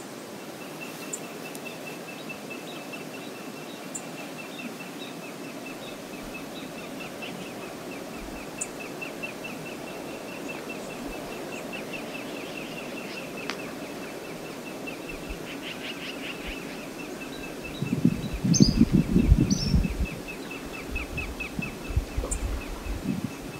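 Steady rush of river water, with a rapid high-pitched chirping repeated several times a second. About eighteen seconds in comes a two-second burst of loud, low rumbling, and weaker low rumbles follow a few seconds later.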